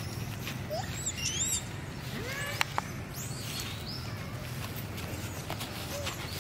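High-pitched animal squeaks and chirps with short rising and falling glides, clustered about one and a half and three seconds in, with a lower rising call near the middle, over a steady low rumble. A couple of sharp clicks come near the middle.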